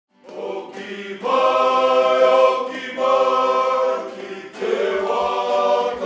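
A group of men singing together in long held notes, in four phrases with short breaths between them.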